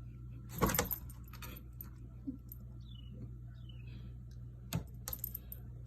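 A short jingling, metallic rattle just over half a second in, then a few light clicks and two faint, falling high chirps.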